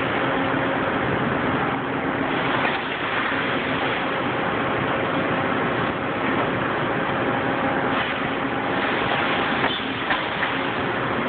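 Patriot RDB76 CNC hydraulic tube bender running: a steady rushing machine noise with a faint hum under it, and a couple of light clicks near the end.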